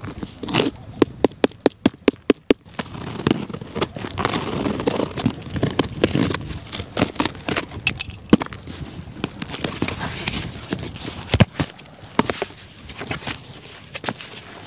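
Packing tape being picked at and peeled off a cardboard box. It starts as a run of sharp clicks, then turns into a crackling, ripping rustle of tape and cardboard as the tape is pulled away and the flaps are worked open.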